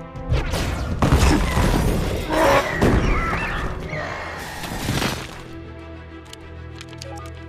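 Film battle sound effects, crashing and shattering debris with heavy impacts, over score music for about five seconds; then the music carries on alone.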